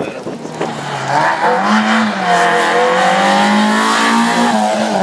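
Rally car engine accelerating: the revs climb over the first two seconds, hold high, then drop away near the end.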